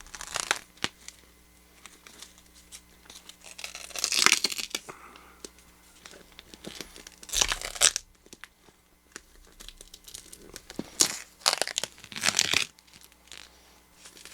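Wide plastic tape being peeled off a wrapped box: several loud ripping pulls a few seconds apart, with quieter crinkling between them.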